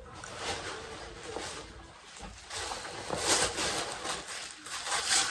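Irregular rustling and handling noise as a large fabric travel bag is moved about, louder from about three seconds in.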